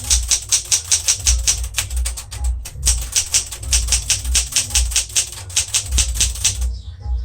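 1975 Smith-Corona Galaxie Twelve manual typewriter being typed on at a fast, steady pace: its keys and type bars strike the platen about six times a second, with a brief pause about two and a half seconds in. The typing stops just before the end.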